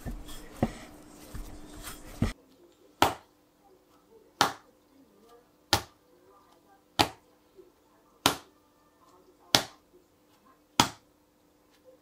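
Hands mixing bread dough in a glass bowl, then bread dough slapped down by the palm onto a wooden pastry board seven times, about one sharp slap every 1.3 seconds.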